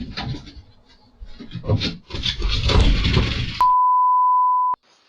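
A steady, high single-pitch censor bleep lasting about a second, starting about three and a half seconds in and cutting off suddenly. Before it come rough scraping and rustling noises.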